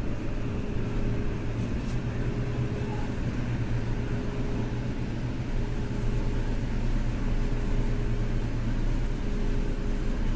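Electric subway train running through a tunnel, heard from the driver's cab: a steady low rumble with a faint constant whine, growing a little louder about six seconds in as the train gathers speed.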